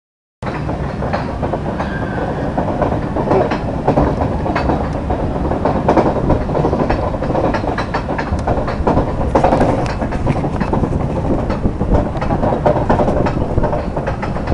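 Steel mine-train roller coaster climbing its chain lift hill, heard from the front car: a steady mechanical rattle of the lift chain with many irregular clacks, starting abruptly about half a second in.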